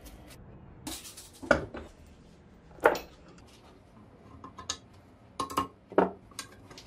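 Metal tools and workpieces being set down and handled on a workbench: a series of separate clanks and knocks at uneven intervals, the loudest about three seconds in and again about six seconds in.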